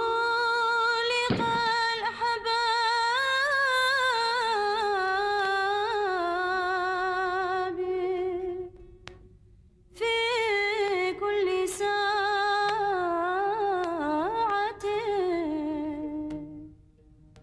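A high solo voice singing long, ornamented held notes with a wavering pitch and no clear accompaniment, in two phrases; the first breaks off about eight and a half seconds in and the second begins about a second and a half later.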